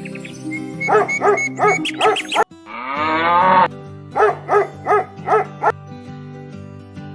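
Farm animal calls over steady background music: a quick run of short calls, one longer rising call, then another run of five short calls.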